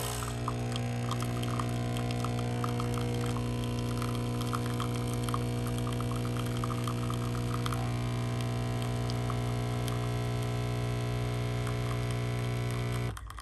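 Nespresso Essenza Mini capsule coffee machine's pump running with a steady, loud hum while brewing, stopping abruptly near the end.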